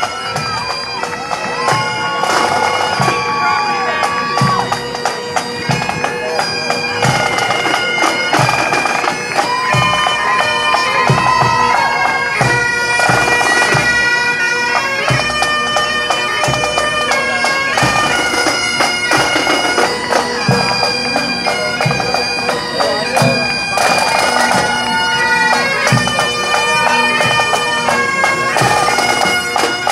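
Pipe and drum band playing a tune: bagpipes sounding a melody over their steady drone, with a drum beating evenly beneath.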